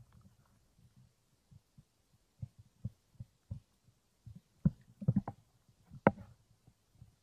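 Scattered muffled thumps and a few sharper knocks from a hand searching and grabbing through seaweed on rocks in shallow water; the sharpest knock comes near the end.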